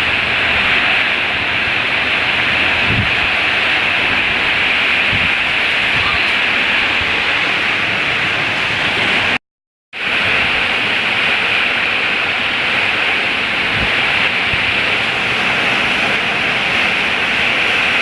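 Heavy rain driven by strong wind, a loud steady hiss of downpour. It cuts out completely for about half a second midway.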